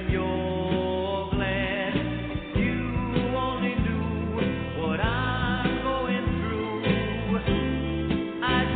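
Background music: a song with singing over guitar and bass.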